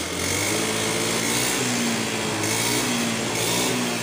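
Honda Scoopy's single-cylinder scooter engine running, freshly rebuilt after seizing from oil starvation, its speed rising a little in the middle and easing back near the end.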